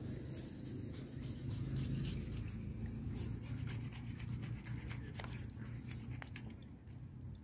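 Knife scraping and cutting through the skin and flesh of a yellowfin tuna: a run of short rasping strokes, over a steady low rumble.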